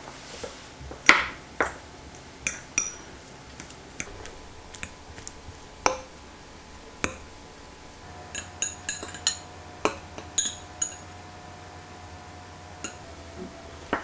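Kitchen utensils and dishes clinking and tapping during food preparation: irregular sharp clinks, some ringing briefly like glass, with a quick cluster of them in the second half.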